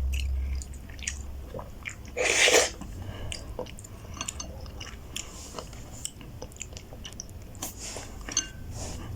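Close-up chewing and wet mouth smacks of someone eating ramen noodles, with many small clicks throughout and one louder burst about two and a half seconds in.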